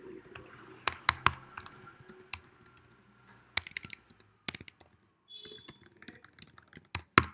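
Computer keyboard being typed on in irregular runs of keystrokes, with a few sharper, louder key strikes among them.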